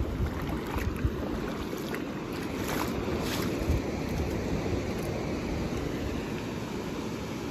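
Steady wind rumble on the microphone over the wash of surf breaking on a reef.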